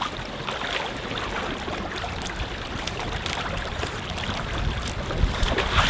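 River water flowing steadily, a continuous rushing with small splashes and clicks, and a few low rumbles near the end.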